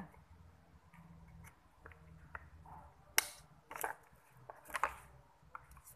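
Screwdriver prying and scraping at the plastic cooling fan on a Miyako blender's motor shaft, metal against plastic: a scatter of small ticks and several sharp clicks, the loudest a little past three seconds, near four seconds and near five seconds.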